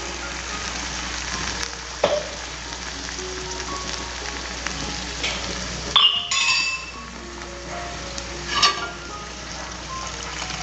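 Thick masala paste frying in oil with shallots, curry leaves and dried red chillies in a pan: a steady sizzle. Three sharp clinks come about two seconds in, about six seconds in (the loudest) and near the end, over soft background music.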